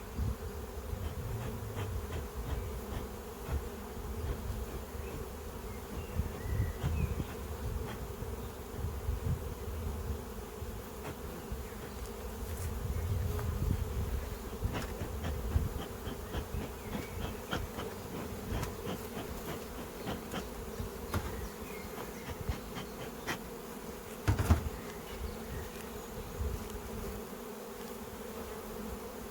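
Honeybees at the hives buzzing in a steady, dense hum, with uneven low rumbling underneath and a single sharp knock near the end.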